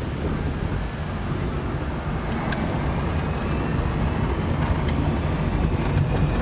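Electric-converted VW Beetle on the move: a steady low rumble of road and drivetrain noise with no engine sound, and two brief clicks in the middle.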